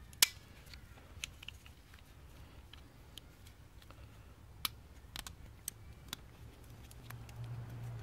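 Small plastic clicks and taps from the parts of a Porsche door lock pivot lever assembly being handled and fitted together by gloved hands. There is a sharp click about a quarter second in and a few lighter ones spread through, over a low steady hum.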